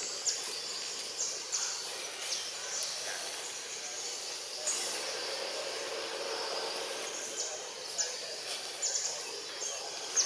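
Forest ambience: a steady high hiss with many short, high chirps scattered through it.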